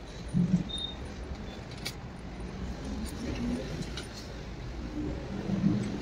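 Steel bolts clicking and clinking as they are handled and set by hand into the aluminium camshaft housing on the cylinder head of a Suzuki Brezza 1.3 diesel engine, over a steady low rumble. Two brief dull knocks stand out, one about half a second in and one near the end.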